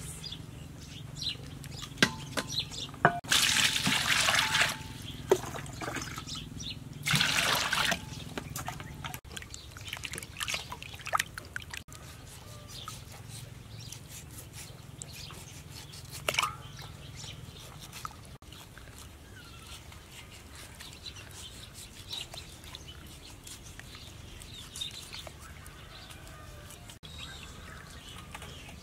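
Water splashing and trickling in a stainless steel bowl as a piece of raw beef is rubbed and rinsed by hand, with two louder splashes of about a second each a few seconds in, then quieter dribbling and small knocks against the bowl.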